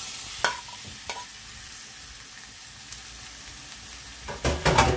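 Raw shrimp sizzling as they hit a hot, dry frying pan with no oil, their own liquid spitting, while a metal spoon scrapes and clicks them off a plate. There is louder clattering in the pan near the end.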